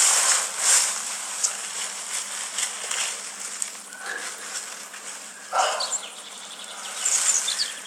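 Fingers rustling through meadow grass and scraping at the soil of an ants' nest, in several short spells, over a steady background of insects chirring in the meadow.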